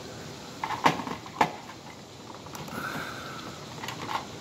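Sharp clicks and knocks of a Simplex horn strobe being handled and fitted against its ceiling mounting plate. Two loud clicks come about a second in, and a few lighter ones come near the end.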